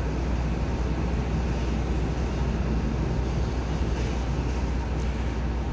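XPT diesel passenger train pulling away, a steady low engine noise from its power cars.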